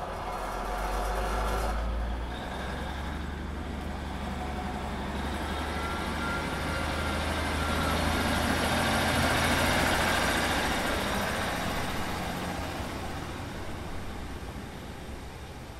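Diesel train engine at a low rumble, growing louder to a peak about ten seconds in and then fading away.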